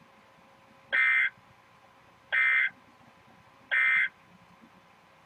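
Emergency Alert System end-of-message signal: three short digital SAME data bursts, each about a third of a second long and about a second and a half apart, marking the end of the alert broadcast.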